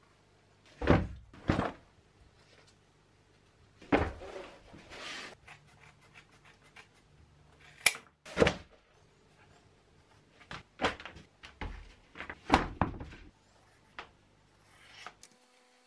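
Scissors cutting leather and thick sheet material by hand, with the knocks of pieces and tools handled on a workbench: a series of separate short, sharp cuts and knocks in small clusters, with pauses between.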